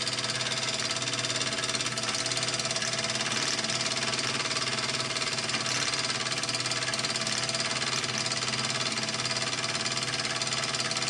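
Small gas-fired model steam engine running steadily with no load, a fast, even beat that doesn't let up, while it is being run in.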